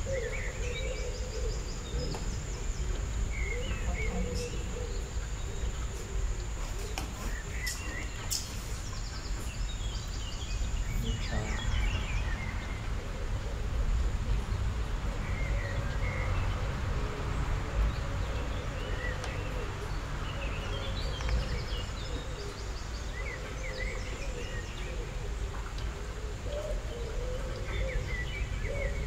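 Steady low background noise with a thin high whine, scattered short high chirps, and low wavering cooing calls now and then.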